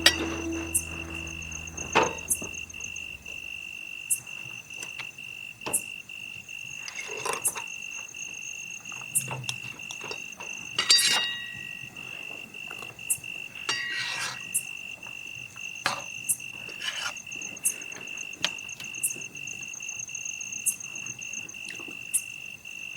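Crickets chirping steadily at night in a fast, even pulse, with scattered sharp clicks and snaps throughout.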